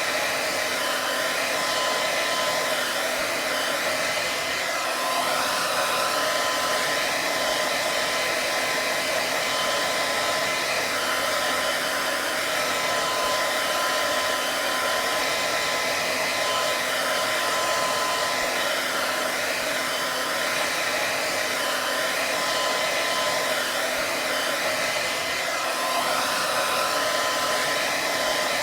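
Hair dryer running steadily: an even rush of blown air with a faint, steady motor whine through it.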